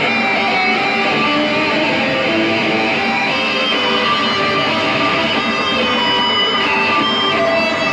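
Two electric guitars played together through amplifiers and effects pedals in a free, experimental noise improvisation: a dense, unbroken mass of sustained, overlapping tones, some of them wavering.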